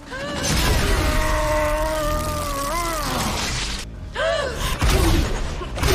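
A woman's long, loud yell, held steady and rising at the end, over a dense crashing, rushing noise with heavy bass, then a second shorter yell about four seconds in.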